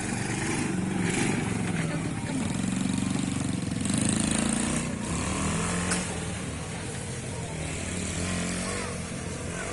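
ATV engine running, its pitch wavering a little as the throttle changes.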